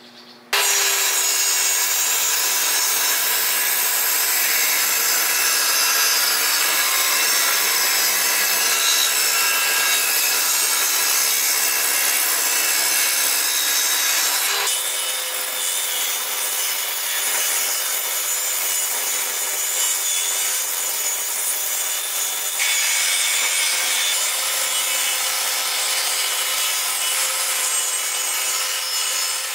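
Benchtop table saw running and ripping narrow wooden strips lengthwise against the fence, a steady whining cut with a constant blade tone. The sound shifts abruptly about halfway through and again about three quarters through.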